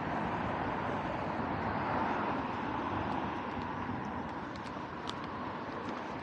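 Steady road traffic noise from a city street, with a few faint clicks near the end.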